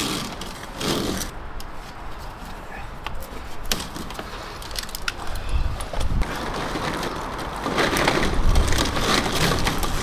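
Crunching of loose gravel and clattering of corrugated plastic duct as it is handled, in irregular clicks and scrapes. A louder low rumble comes in during the second half.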